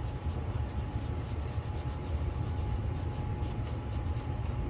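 Aqua 10,600-grit wet/dry polishing paper rubbed back and forth on the hazy camera lens of a Ring Video Doorbell Pro, a fine polishing stage clearing the fog: faint quick scratchy strokes, a few a second. Beneath them runs a steady low hum.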